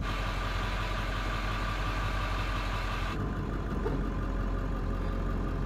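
Diesel Ford F-350 pickup running steadily on the road, a low engine hum with road hiss above it. About three seconds in, the hiss drops off abruptly while the engine hum carries on.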